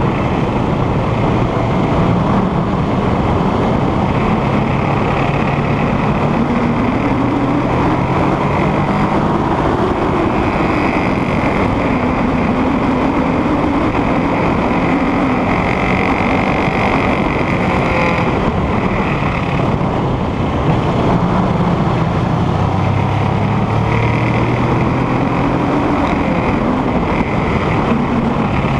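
Motorcycle engine heard from an onboard camera. Its pitch rises and falls several times as the rider accelerates and backs off through a run of bends.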